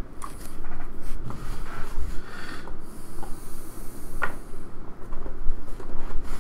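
Hands handling a sealed cardboard trading-card hobby box, its surface rubbing and rustling against the fingers, with a sharp tap about four seconds in.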